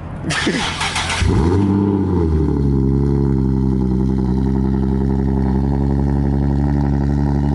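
Car engine starting: a short crank, then it catches about a second in with a rev flare that rises and falls, and settles into a steady idle.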